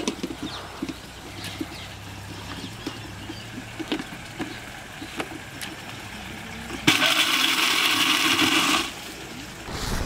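Electric mixer-grinder (blender) switched on about seven seconds in, its motor running loud and steady for about two seconds, then cut off abruptly. Before it, only light clicks and rustles.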